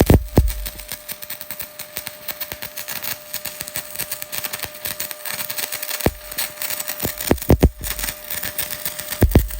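Stick (SMAW) welding arc crackling steadily as a covered electrode runs a bead, over a faint steady hum, with a few low thuds along the way.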